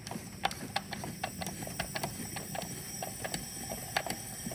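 A ratchet wrench clicking in short irregular runs, about three to four clicks a second, as the engine's crankshaft is turned by hand to bring cylinder 3 up for a leak-down test.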